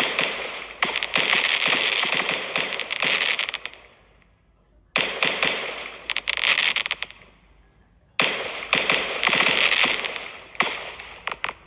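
Aerial fireworks display: dense volleys of sharp crackling reports from bursting shells. They come in three waves, with short lulls about four and seven seconds in.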